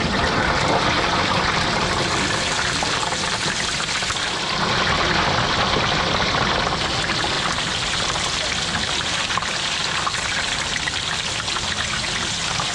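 Stinky tofu deep-frying in a tray of hot oil: a dense, steady crackling sizzle that starts suddenly as the blocks go into the oil.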